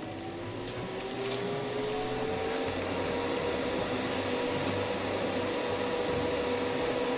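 Airbrush spray booth's extractor fan spinning up and then running steadily: a loud rush of air, which the owner compares to a hairdryer, with a hum that rises in pitch over the first few seconds and then holds.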